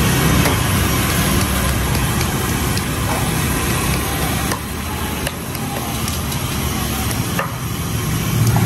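Gas wok burner burning steadily under a wok of deep oil, with food sizzling as it fries. Metal tongs click lightly against the wok a few times.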